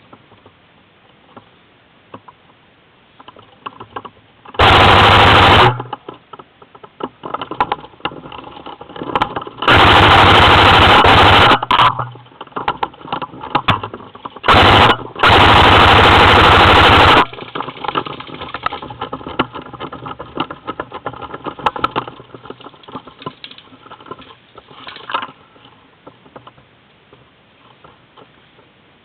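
Airsoft AK-74 replica firing four full-auto bursts, each from under half a second to about two seconds long, the last two close together. Between the bursts, faint clicks and rustling.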